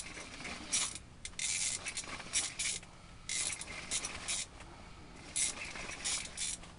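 Irregular short bursts of rustling and scraping, about a dozen, from an angler's clothing and gear moving as they jig a line through the ice, over a faint steady low hum.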